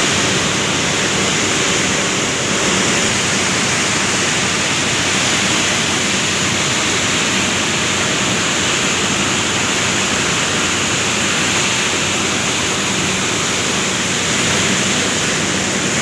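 Palm oil mill clarification machinery, the sludge-oil separating centrifuges and sand separator, running loud and steady: an even hiss with a faint low hum underneath.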